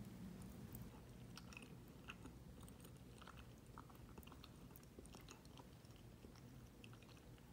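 Faint chewing of a mouthful of soft chocolate mug cake: scattered small clicks over a low steady hum.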